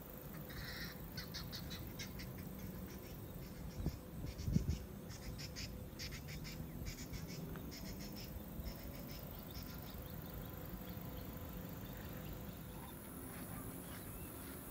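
Wild birds calling in rapid, repeated high notes, busiest in the first nine seconds or so, then fading. Two low thumps come about four seconds in.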